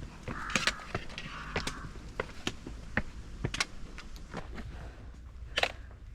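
Hiker's footsteps on a trail: an irregular run of steps, scuffs and sharp clicks.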